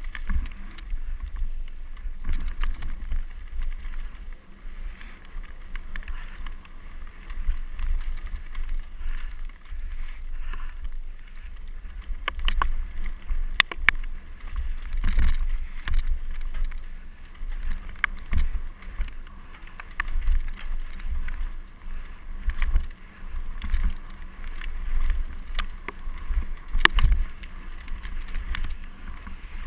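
Mountain bike descending a rough, rocky singletrack at speed: a constant low rumble of wind buffeting the camera microphone, with sharp clatters and knocks of the bike rattling over rocks and roots scattered throughout. The loudest knocks are bunched around the middle and near the end.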